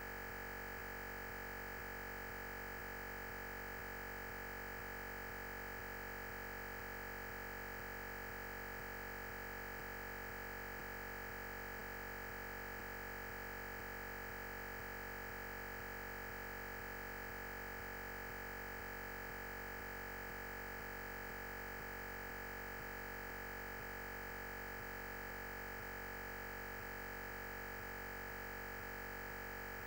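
Steady electronic hiss with a constant high-pitched tone, unchanging throughout: noise from the recording system while the lecture audio is absent.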